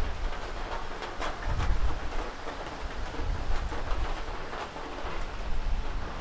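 Rain falling on a river, a steady hiss with many small drops ticking close by, over a low rumble that swells and fades a few times.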